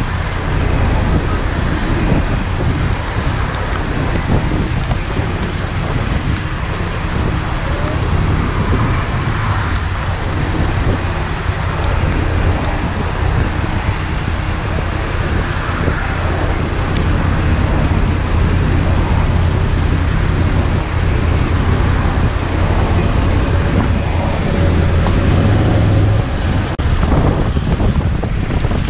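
Wind rushing over the microphone on a moving motorcycle in the rain, over a steady low engine hum and the noise of tyres and traffic on wet road.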